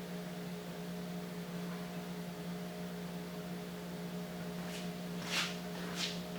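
Steady electrical hum with a faint fan-like hiss, with two brief rustles near the end.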